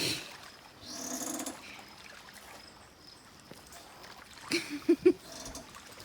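Dogs playing: a dog's short yips, a quick cluster of them near the end, with a longer noisy whine about a second in.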